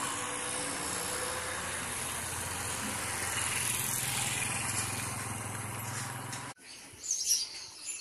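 A motor vehicle's engine running steadily with road noise. It cuts off suddenly about six and a half seconds in, leaving a quieter background with a few short clicks and high chirps.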